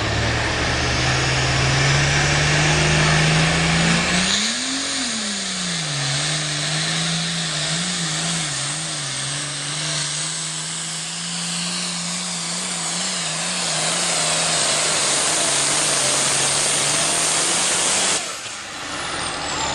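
International super farm pulling tractor's turbocharged diesel engine running flat out through a pull. Its pitch climbs over the first few seconds, spikes up and drops back about four seconds in, then holds steady with a slight waver. Near the end the engine is suddenly cut back and a high whine falls away.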